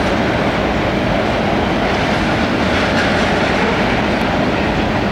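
Freight train of autorack cars rolling past close by: a loud, steady noise of steel wheels on the rails.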